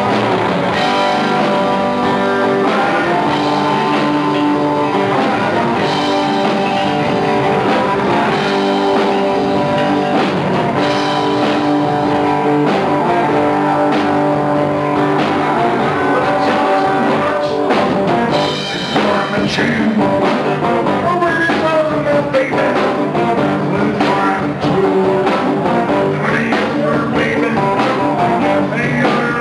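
Live rock band playing: electric guitars, electric bass and a drum kit, with a brief drop in loudness about two-thirds of the way through.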